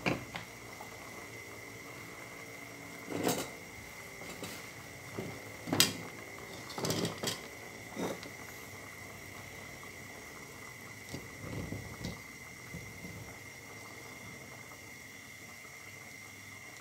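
Scattered knocks and clinks of kitchenware being handled, the loudest about six seconds in and a quick cluster just after it, then a few light ones near the end; a faint steady high-pitched whine sounds throughout.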